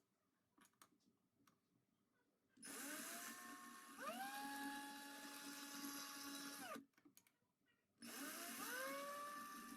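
A small electric drill-like power tool runs in two bursts of a few seconds each, its whine rising in pitch as the motor speeds up and cutting off sharply between them. Light clicks and taps come before the first burst.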